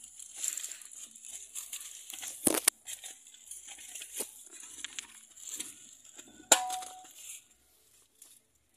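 Dry leaves, twigs and brush rustling and crackling as a hand pushes through undergrowth to pick up a fallen fruit, with a few sharp snaps or knocks, the loudest about two and a half and six and a half seconds in.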